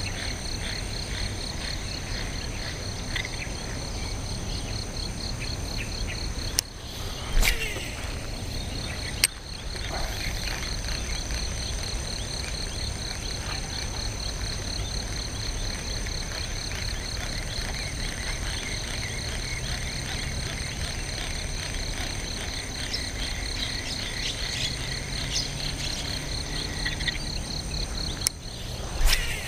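Chorus of calling insects and frogs: a steady, rapidly pulsing high trill with other steady high tones above it, over a low rumble. A few sharp knocks break in about seven seconds in, at about nine seconds, and just before the end.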